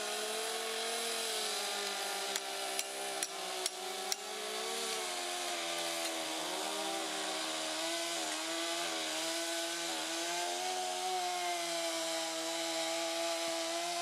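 Chainsaw engine idling steadily while a wedge is worked into the saw cuts in a pine trunk to pop out the wood blocks, with a quick run of five sharp knocks a few seconds in.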